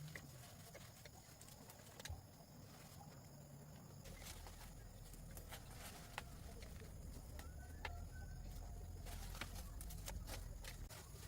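Quiet ambience with scattered small clicks and knocks over a low hum, and a few brief, faint animal calls such as chicken clucks or bird chirps.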